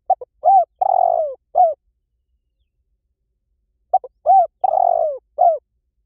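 Spotted dove cooing: two identical phrases about four seconds apart, each a couple of short notes, a longer falling coo and a short closing note.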